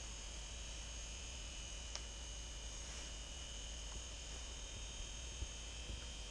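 Steady high-pitched electronic whine over a low hum, with a few faint ticks.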